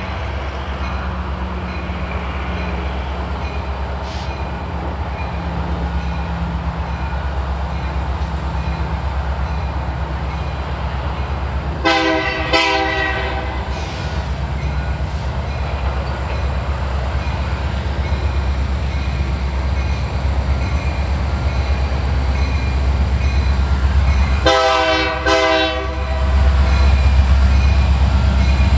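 Approaching Union Pacific freight train led by an EMD SD70M diesel locomotive: a steady low diesel rumble that grows louder near the end as the locomotives come close. The horn sounds two short blasts about twelve seconds in and two more about twenty-five seconds in.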